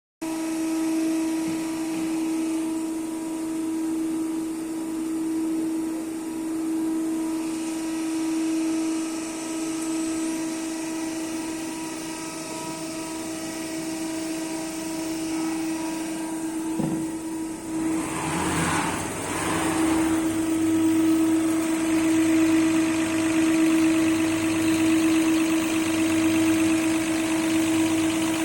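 EPS916 diesel injector test bench running while testing a CAT 3412E injector: a steady machine hum with overtones. About two-thirds of the way through there is a click and a brief rushing noise, after which the bench runs a little louder.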